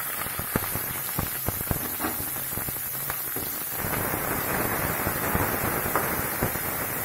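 Onions, chillies and curry leaves frying in hot oil with mustard seeds in a kadai: a steady sizzle with sharp crackles and pops. From about four seconds in a metal spatula stirs through the pan and the sizzling grows denser.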